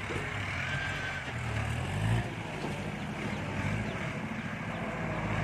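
Kubota tractor's diesel engine running steadily while working the field, its pitch rising briefly about two seconds in.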